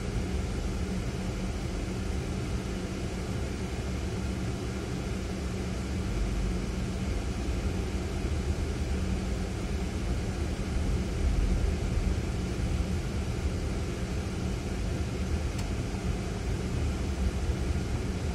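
Ford Fiesta being driven in city traffic, heard from inside the cabin: steady engine drone and tyre and road rumble, a little louder around the middle.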